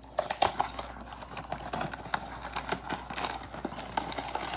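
Blind box packaging being opened by hand: cardboard and plastic wrapping handled and torn, a run of small, irregular clicks and crinkles.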